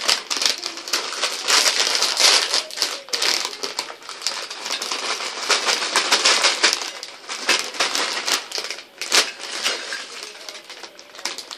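Crisp packet crinkling and rustling as crisps are tipped onto a plate, a dense crackle that thins out to scattered crackles after about seven seconds.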